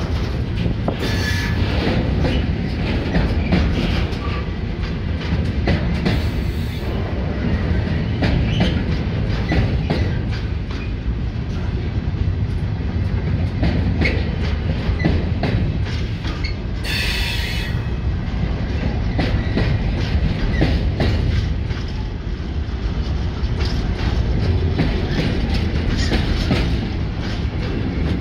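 Loaded container flat wagons of a freight train rolling past close by: a steady heavy rumble with the wheels clacking over rail joints. A brief high hiss comes about seventeen seconds in.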